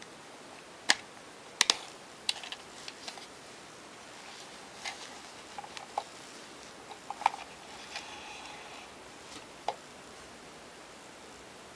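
Sharp clicks and taps of a hard plastic toy figure being handled: a few loud clicks in the first two seconds, scattered lighter ticks, another loud click past the middle and one more near the end, over a faint steady hiss.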